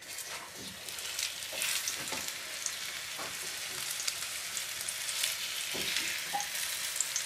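A floured ling fillet laid into hot oil in a frying pan, sizzling as soon as it goes in, with scattered pops and crackles over a steady hiss that grows over the first few seconds.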